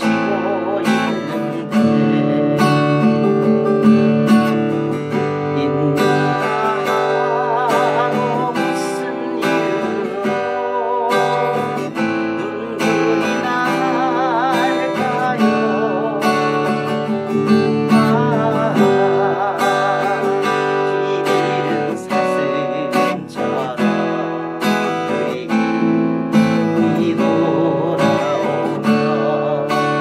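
Steel-string acoustic guitar played with the fingers: fretted chords plucked and strummed, with a sharp attack on each new note or chord.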